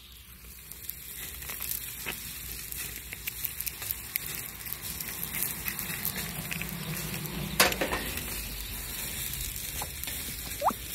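Chicken thighs sizzling over a hot charcoal grill, a steady sizzle with many small crackles. There is one sharp click about two-thirds of the way through.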